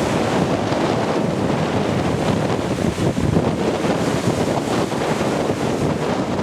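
Strong wind buffeting the microphone, with small waves breaking on the beach; a steady, loud rush with no let-up.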